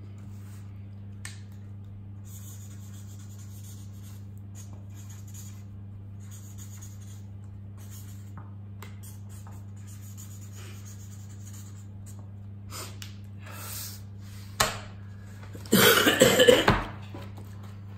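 A felt-tip marker scratching across paper in several short spells over a steady low hum, then a loud cough near the end.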